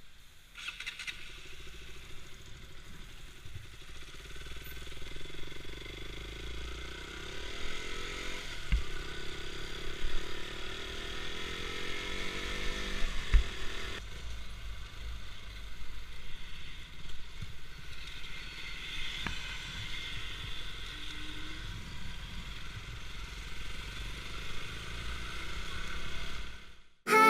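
KTM Duke motorcycle engine running under way, its note rising and falling as the rider accelerates and eases off, with road and wind noise.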